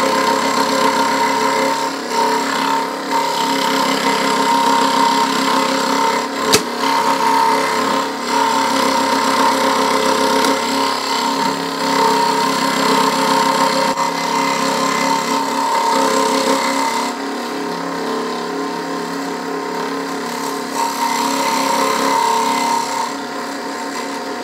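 Bench scroll saw running, its thin blade stroking up and down through melamine board during interior cuts: a steady motor hum with a fast rhythmic chatter. There is one sharp click about six and a half seconds in. The saw gets a little quieter for the second half.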